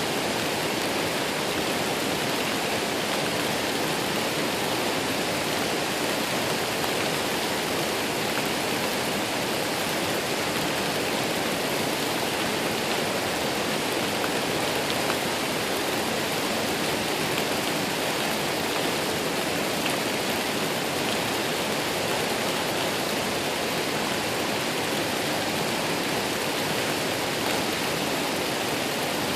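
A waterfall: the steady, unbroken rush of falling water.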